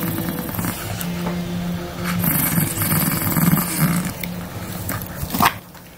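Chihuahua growling over its food bowl: a low, rough growl in long stretches with short breaks, a guarding growl at mealtime. A short sharp sound near the end, after which it goes quieter.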